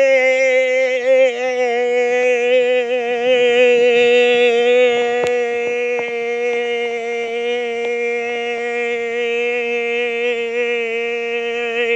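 A man's voice holding one long, loud sung note for about twelve seconds, the pitch steady with slight wavering and a small dip near the end.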